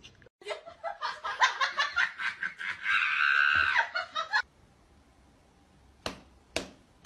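A person laughing in quick, rhythmic bursts for about four seconds, rising to a higher, held note near the end of the laugh. Then, after a short quiet spell, two short sharp taps about half a second apart.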